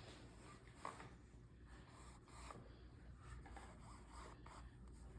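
Faint brush strokes on canvas: soft, scratchy rubbing in short irregular strokes, with one slightly louder stroke about a second in, over a low steady room hum.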